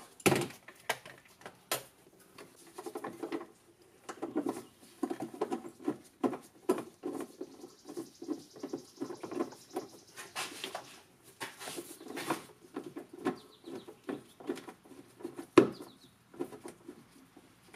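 Irregular light clicks, taps and scraping of metal hand tools as a fastener is started by hand with a long socket extension, with one sharper knock near the end.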